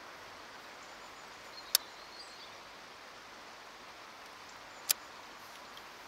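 Steady outdoor background hiss with two sharp, very short clicks about three seconds apart.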